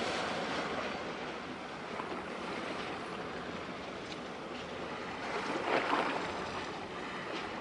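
Steady rush of wind and sea wash, with no clear engine tone, and a brief louder surge about six seconds in.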